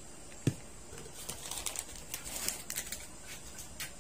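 A single thump, then a run of light crackling and scraping as cornstarch is scooped and tipped into a plastic bowl.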